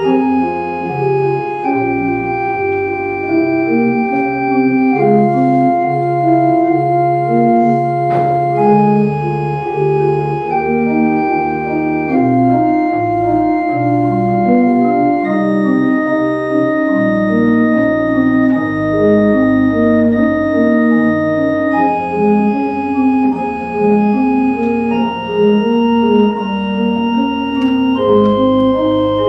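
Organ playing slowly: sustained chords that change every second or two over long-held bass notes.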